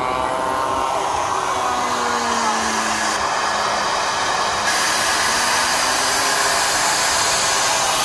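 Turbine engine of a large radio-controlled model jet flying past: a steady rushing whine that jumps abruptly in tone about three seconds in and again a second and a half later.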